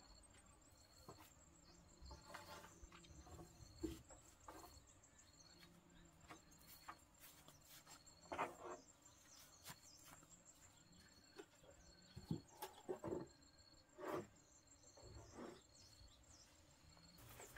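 Quiet, scattered knocks and clatters of wooden planks being picked up and set down on grass, over an insect's high chirp repeating at an even pace.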